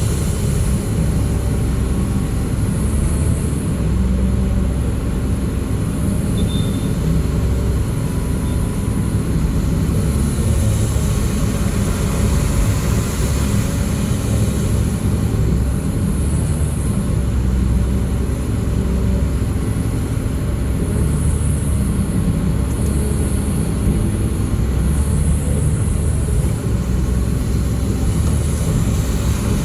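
Large diesel engine running steadily, a continuous low rumble with no breaks.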